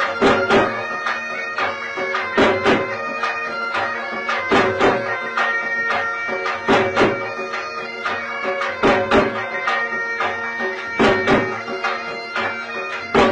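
Traditional folk music: a melody over a steady held drone, with pairs of heavy drum beats about every two seconds.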